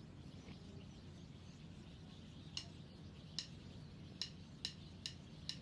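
Faint room tone with six short, high chirps spaced about half a second to a second apart in the second half, typical of a small bird calling outside.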